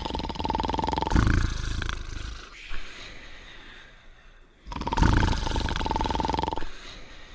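Cartoon dogs' snoring: a loud, low, rattling snore with a steady whistle over it, coming twice about four seconds apart, with quieter breathing between.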